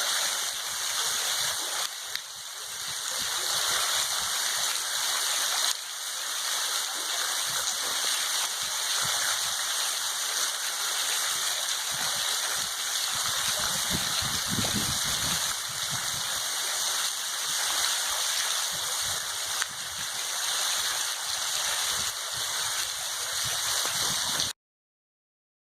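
Water from a solar-powered pump pouring steadily out of the outlet pipe and splashing, a constant rushing sound that cuts off suddenly near the end.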